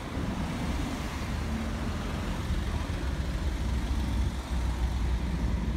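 Road traffic noise on a city street: a steady low rumble of vehicles with no distinct events.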